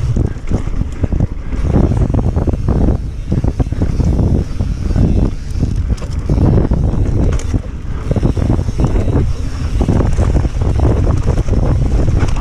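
Wind buffeting the microphone as a mountain bike descends a dirt singletrack at speed, with tyres rolling over dirt and the bike rattling and clattering irregularly over bumps.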